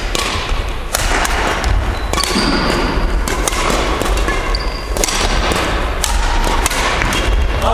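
Badminton rally: rackets striking the shuttlecock in sharp, irregular smacks, mixed with players' footsteps on a wooden gym floor, echoing in a large hall.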